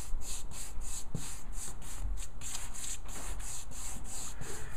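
Paintbrush bristles scrubbing paint onto a wall corner in quick back-and-forth strokes, about four a second.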